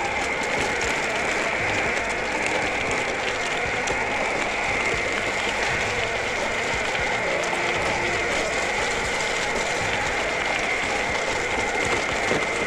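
BajaBoard S2 Atrax electric off-road skateboard climbing a dirt and gravel trail. Its 8-inch all-terrain wheels make a steady gritty crackle over the stones, under a steady high whine from its 6358 brushless motors, and the battery box rattles as it bangs around on the rough ground.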